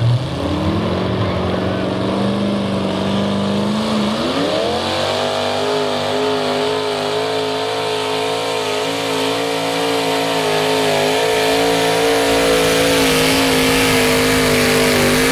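Supercharged engine of a modified pulling tractor at full throttle, dragging the weight sled. The note climbs as it launches, climbs higher again about four seconds in, then holds at a steady high pitch under load.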